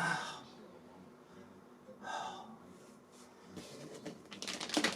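Two breathy exhalations about two seconds apart, the first the louder, then a run of clicking and crackling from packaging being handled, starting a little past halfway and growing busier near the end.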